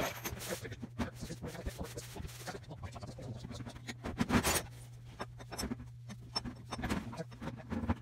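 Sheet-metal and plastic parts of a scrapped microwave oven clattering and scraping as it is taken apart by hand, with a louder knock about four seconds in. A steady low hum runs underneath.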